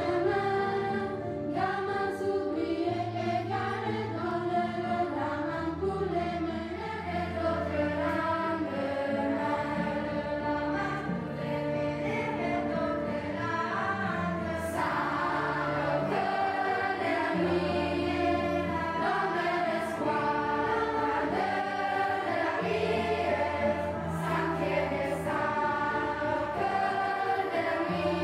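A choir of young voices singing a polyphonic piece in several parts, with held notes and overlapping lines.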